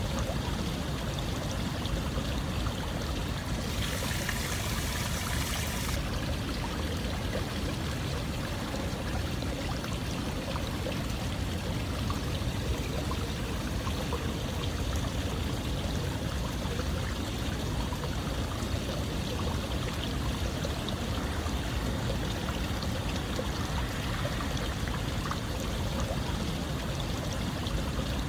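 Running water flowing steadily like a stream, an even rushing noise. About four seconds in it turns brighter and hissier for a couple of seconds.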